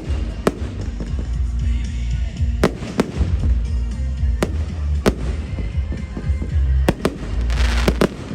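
Firework display: sharp bangs of shells bursting every second or so, with a stretch of crackling near the end, over music with a heavy, steady bass.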